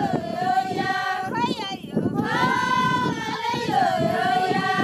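Several Maasai women singing together in long held notes that slide downward, with a brief break about two seconds in.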